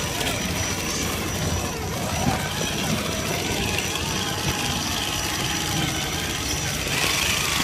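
Traxxas TRX4 scale RC crawler's electric motor and geared drivetrain whining as it crawls over rocks, the pitch wavering up and down with the throttle.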